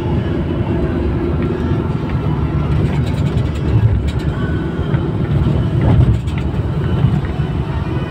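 Steady low rumble of road and engine noise heard inside a moving vehicle's cabin while it drives along a highway.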